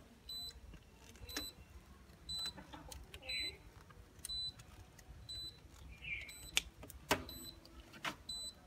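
An electronic beeper sounds a short, high beep about once a second, evenly spaced. A few sharp clicks come in near the end as pliers and wires are handled.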